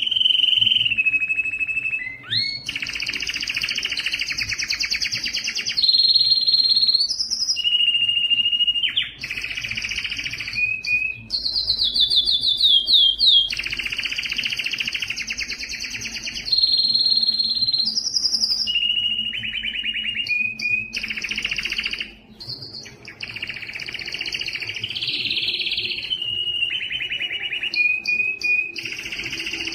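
Domestic canary singing an excited breeding-season song without pause. Long runs of rapid trills and rolls alternate with steady whistled notes, with brief breaks about two seconds in and again past the middle.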